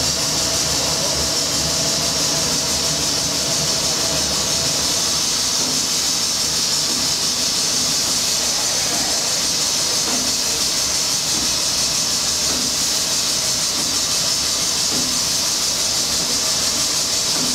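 Steady loud hiss and machinery noise of a steamship's engine and boiler room, with the steam plant running.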